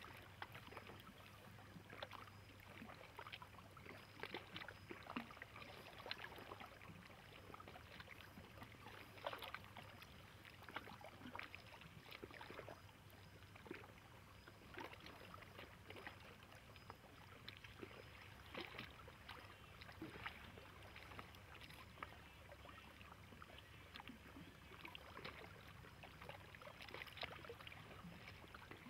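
Lake water lapping faintly, with small irregular splashes and slaps every second or two, over a low steady hum.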